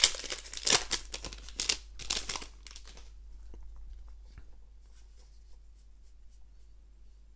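Foil booster-pack wrapper crinkling and tearing in several bursts as it is ripped open, for about the first three seconds. After that only faint clicks of the card stack being handled.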